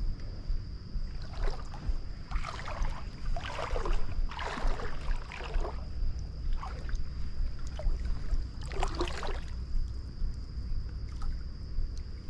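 A hooked smallmouth bass splashing at the water's surface in several irregular bursts as it is played in on the line, over a steady low rumble.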